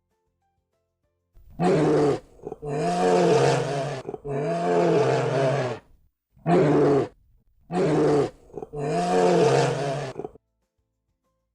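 Lion roaring: two series of three roars, each a short roar followed by two longer ones, the pitch rising and falling within each roar.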